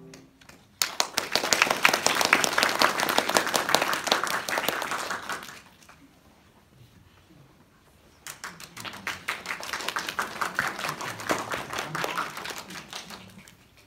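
A held piano chord is released right at the start. Then comes audience applause in two rounds: the first breaks out about a second in and dies away around five and a half seconds, and after a short lull a second, slightly quieter round starts about eight seconds in and fades near the end.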